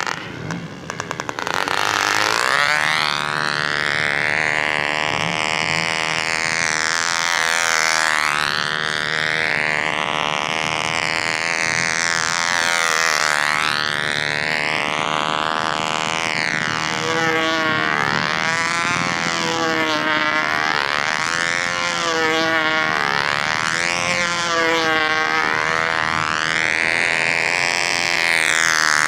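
McCoy .29 Red Head two-stroke glow engine running at full power in a control-line model airplane. Its pitch rises and falls about every two and a half seconds as the plane circles. About a second in, it briefly stutters and drops in level before picking up again.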